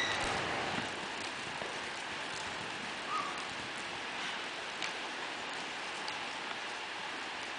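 Paint/Appaloosa mare walking under a rider on soft arena sand: a few faint, irregular hoofbeats over a steady hiss.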